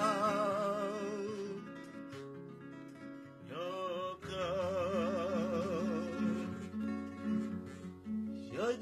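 A slow Romani hallgató song: a singer holding long notes with heavy vibrato over acoustic guitar. One phrase fades away and a new one begins about three and a half seconds in.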